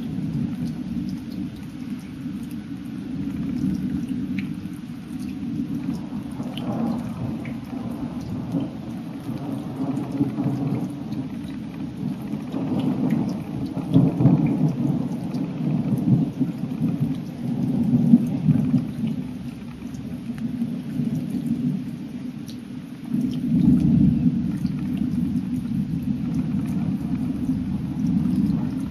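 Thunder rumbling from a passing storm, swelling louder several times, strongest around the middle and again near the end, over a steady patter of rain.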